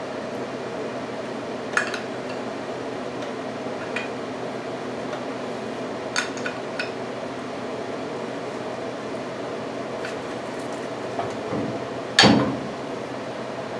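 Light metallic clinks as a disc brake caliper is handled, then one loud metal clunk near the end as the caliper is set onto the front rotor and spindle bracket, over a steady background hum.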